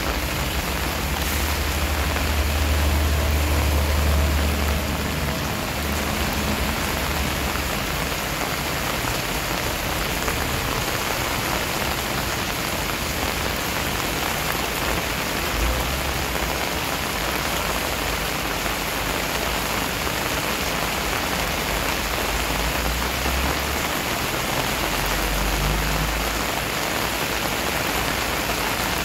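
Steady rain falling on wet paving and plants. A low rumble rises under it in the first few seconds and again in the second half.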